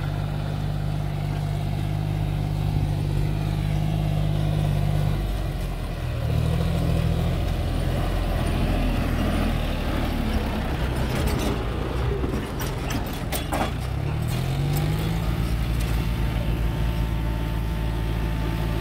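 Farm tractor's diesel engine running steadily as it hauls a trailer loaded with soil over rough dirt. Its note drops about five seconds in, then rises twice as it revs up. A short run of sharp knocks and clatter comes a little past the middle.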